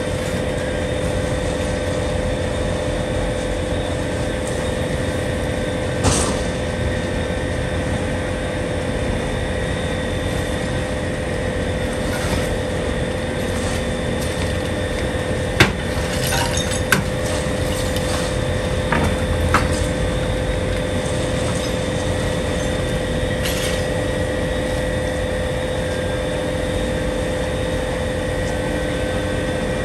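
Steady noise of a building fire being fought: a constant engine-like drone with held tones, and a scattering of sharp cracks and clinks of breaking glass and falling debris, the loudest about halfway through.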